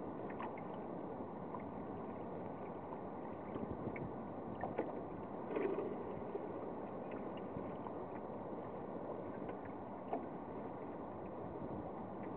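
Water rushing and lapping along the hull of a small sailboat under way, a steady wash with scattered light clicks and a brief louder bump about five and a half seconds in.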